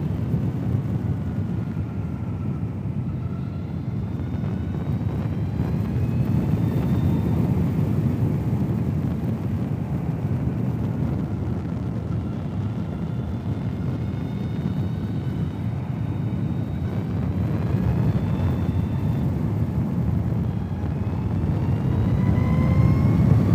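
Zero SR/F electric motorcycle on the move: a faint electric motor whine that glides down and up in pitch with road speed, over a steady rumble of tyres and wind. Near the end the whine rises as the bike accelerates.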